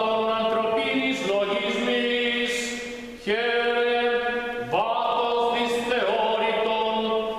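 Greek Orthodox liturgical chanting: unaccompanied voices sing long, held notes in slow phrases, with a short break about three seconds in before the next phrase begins.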